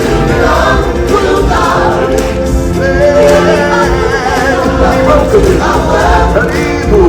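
Live stage show music: a choir of singers performing an upbeat welcome song over a backing track with a steady low beat.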